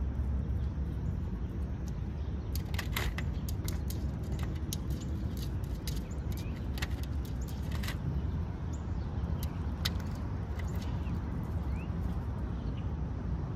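Outdoor ambience: a steady low rumble, with a cluster of sharp clicks a few seconds in and a few faint short chirps.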